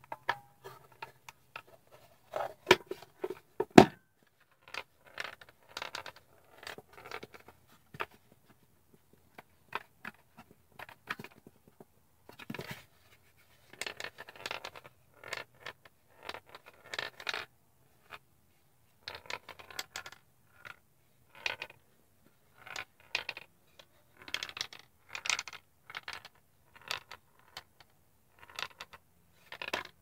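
A ball rolling and clicking against the walls of a maze hidden inside a cigar box's lid as the box is tilted, in short bursts of rattling with pauses between. Two louder sharp knocks about three seconds in, as the box's lid is shut.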